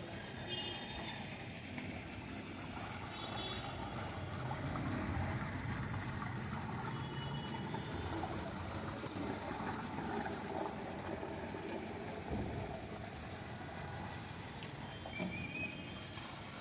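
Water gushing from several upturned large plastic water-cooler bottles into a big steel tub, over a steady hum of street traffic.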